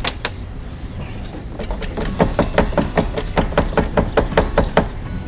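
Siphon hose being worked up and down in a plastic fuel tank to prime it, making a rapid series of sharp clicks, about five a second, for about three seconds, to get the old gasoline flowing.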